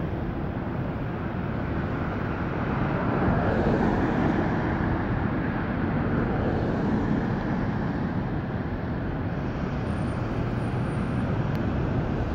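Steady city street traffic noise that swells and eases a little as vehicles pass.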